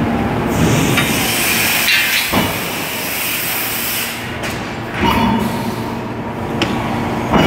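Hydraulic forging press working a red-hot steel forging: a steady hiss, with heavy knocks about two and a half and five seconds in.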